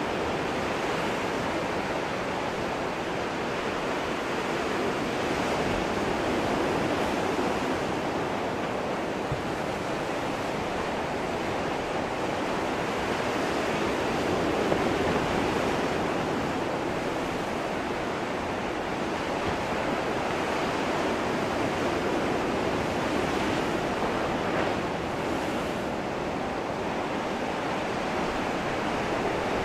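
Ocean surf: waves washing in continuously as a steady rushing that swells and eases slowly.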